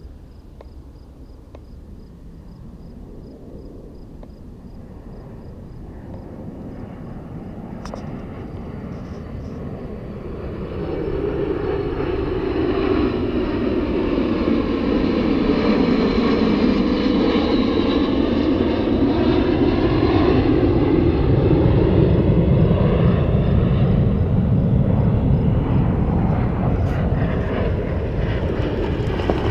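A formation of jet aircraft flying past low. The jet noise builds from about ten seconds in and swells to a loud, rushing roar, with slow sweeping shifts in tone as the planes go by.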